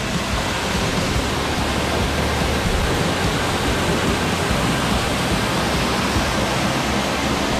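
A waterfall's falling water making a steady, loud rushing noise.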